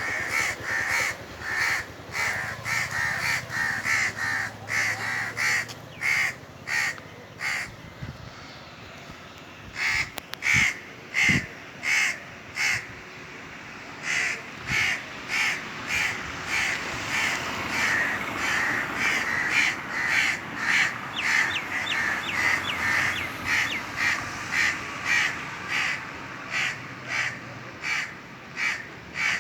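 Indian crows cawing over and over, about two harsh caws a second, several birds overlapping, with a brief lull about eight seconds in.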